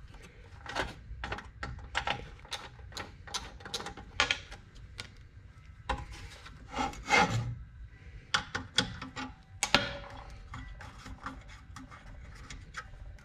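Irregular clicks, taps and scraping of a small socket nut driver and metal parts being handled on a workbench as nuts are undone from a car's dash cluster face panel. A few sharper clicks come near the middle.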